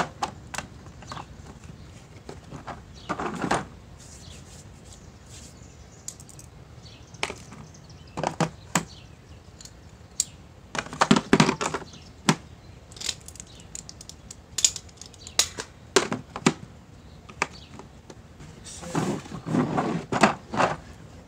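Metal sockets and wrenches clicking and clattering against each other and the plastic trays as they are packed into a mechanic's tool set case, in scattered bursts, busiest around the middle and again near the end.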